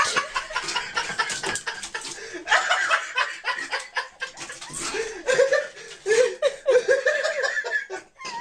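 People laughing in short, choppy bursts, loudest in the second half.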